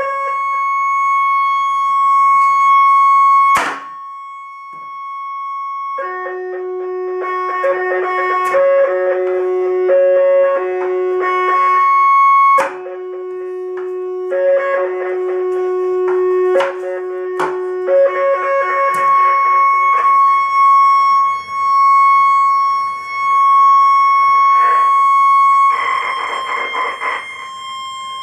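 Electronic synthesizer tones from a katana rigged as a synthesizer: steady held notes that change pitch every few seconds, with several sharp hits as the blade chops into watermelon on a wooden table.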